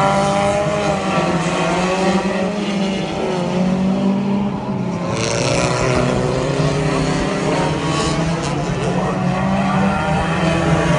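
Several front-wheel-drive figure-8 race cars running hard as a pack, their engine notes rising and falling as they rev through the corners. A short burst of hiss comes about five seconds in.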